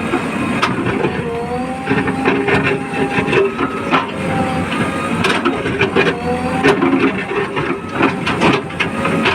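Backhoe loader at work: the engine and hydraulics whine, the pitch shifting as the arm moves, with repeated clanks and knocks of metal and earth.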